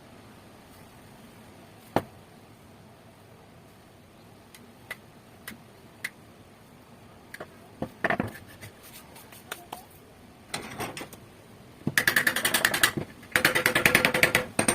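Hand work on rusty gun metal: scattered light clicks and taps, then a short scrape about eight seconds in. Near the end come two loud bursts of rapid, evenly repeated scraping strokes.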